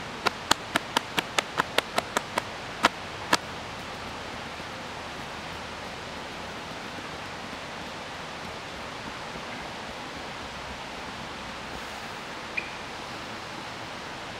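A quick run of sharp slaps, about four a second, stopping about three seconds in, then a steady hiss of outdoor background noise with one small click near the end.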